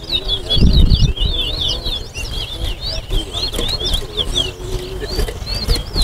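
Caged towa-towa seed finch singing a continuous, rapid warbling song of quick rising and falling notes, the song being counted in a bird-singing race. A dull low thump about a second in.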